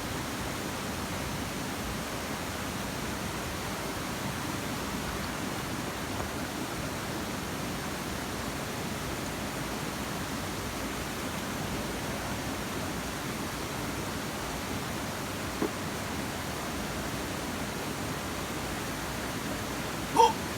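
Steady, even rushing noise with no pitch or rhythm, with a short click about fifteen seconds in and another near the end.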